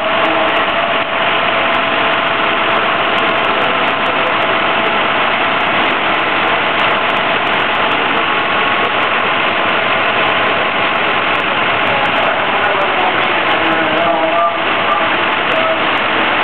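Fire truck engines running steadily at the scene, a constant loud drone with no breaks.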